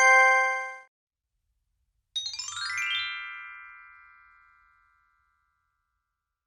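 Synthesized chime sound effect: a quick rippling run of bright bell-like notes about two seconds in, ringing on and fading away over about three seconds. Just before it, the tail of a single bell-like ding dies out in the first second.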